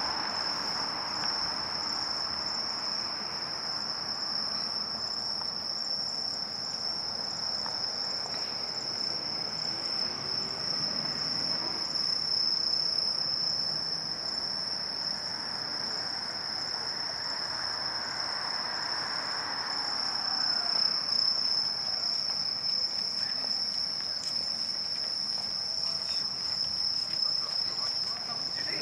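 Crickets trilling in one steady, unbroken high-pitched tone, over a low hum of distant city traffic that swells a little now and then.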